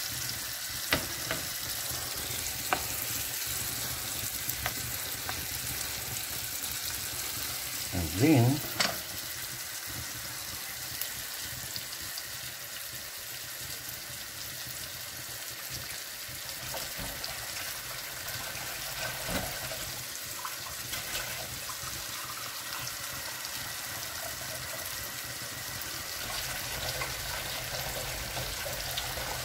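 Diced tomatoes and onions in butter sizzling steadily in a frying pan as they cook down. A few clicks of a wooden spoon against the pan come near the start, and a short voice-like sound comes about eight seconds in.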